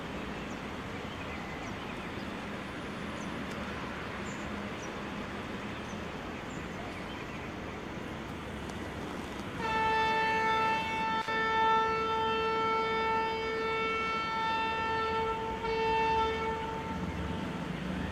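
Steady outdoor background hiss with faint bird chirps, then about ten seconds in an approaching Indian Railways WAP-7 electric locomotive sounds its horn: one long blast at a single steady pitch lasting about eight seconds, wavering briefly in loudness partway through.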